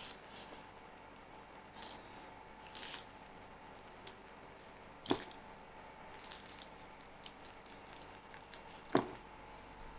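Fingertips pressing dimples into soft, risen focaccia dough in a baking tray: faint, soft squishing presses again and again, with two sharper clicks, about five seconds in and near the end.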